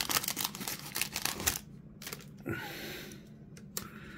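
Foil wrapper of a Topps baseball card pack crinkling in a rapid crackle as it is pulled off the cards. Then come softer rustles and a click as the stack of cards is handled.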